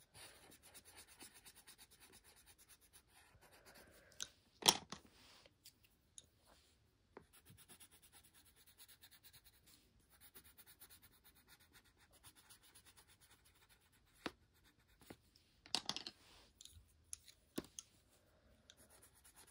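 Colored pencil scratching faintly on paper in quick repeated shading strokes, with a few sharp clicks.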